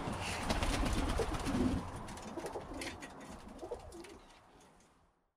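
Birmingham roller pigeons cooing, fading away to silence about four and a half seconds in.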